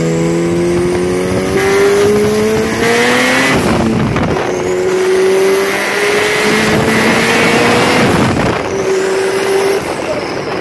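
Turbocharged Honda CRX engine pulling at full throttle. Its pitch climbs through the revs, drops at a gear change about three and a half seconds in, climbs again, and shifts once more near the end, with a faint high turbo whistle rising along with it.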